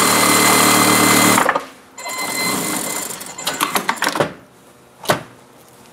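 Industrial lockstitch sewing machine stitching a seam at speed in two runs with a short stop between them, then a single sharp click near the end.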